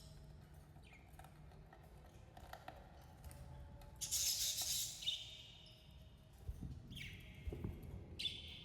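Budgerigars chattering: scattered short chirps, a loud harsh squawk about four seconds in, then clear whistled chirps, with a few low thumps near the end.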